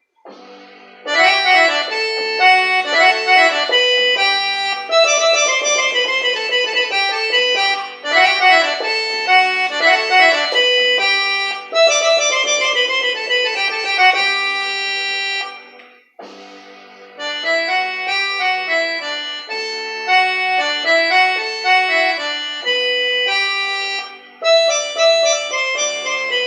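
Accordion melody played in lively phrases of sustained notes over a held low note, breaking off briefly about sixteen seconds in and then starting again.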